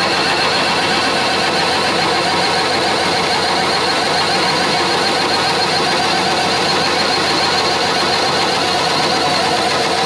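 Skid steer's diesel engine running steadily, powering the hydraulics of a Halverson HWP 150 firewood processor, with a dense, even mechanical clatter and whine.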